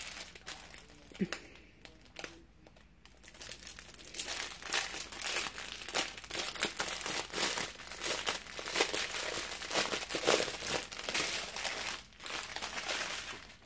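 Clear plastic packaging crinkling as small bags of rhinestone diamond-painting drills are pulled from their plastic sleeve and handled. The crinkling is sparse at first and turns dense and continuous from about three seconds in.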